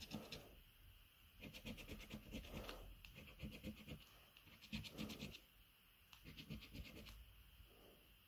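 A 50p coin scratching the latex coating off a paper Cashword scratchcard, faint, in short bursts of quick back-and-forth strokes separated by brief pauses.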